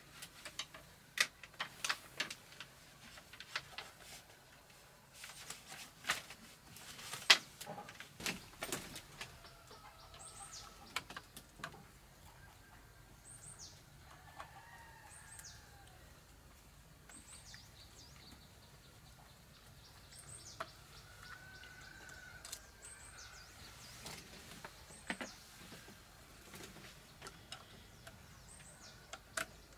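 Sharp clicks and knocks of hands working wire and a plastic switch plate against a bamboo post, crowded into the first ten seconds or so. Then birds call in the background: short, high, falling chirps every couple of seconds, with a few lower calls.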